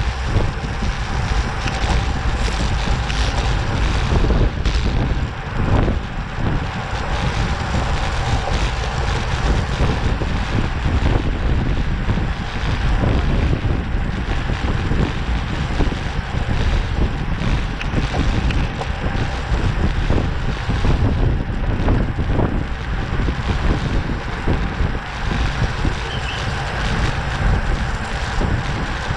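Wind rushing over the microphone of a racing bicycle's onboard camera at speed: a loud, steady rush with a faint steady hum under it.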